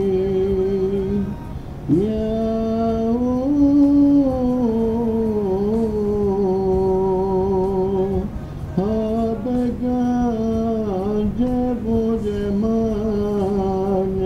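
A single voice singing a slow devotional ilahi hymn in long held notes with gliding ornaments. It breaks briefly for breath about two seconds in and again about eight and a half seconds in.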